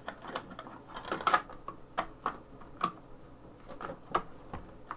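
Irregular plastic clicks and rattles as a battery-box cover is worked at, not yet seated on its slide-on track.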